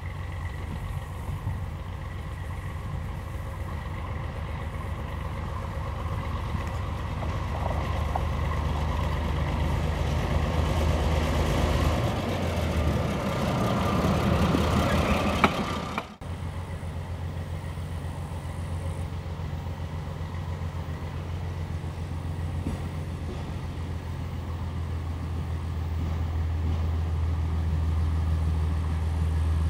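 MBxd2 diesel railcar on metre-gauge track running past: a steady low engine hum that grows louder, with wheel and running noise loudest as it passes close by about halfway through. After an abrupt cut the railcar's engine hum is heard again, slowly growing louder as it approaches.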